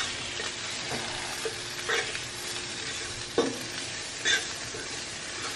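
Food sizzling as it fries in a pan, a steady hiss, with three short clatters of a utensil stirring it.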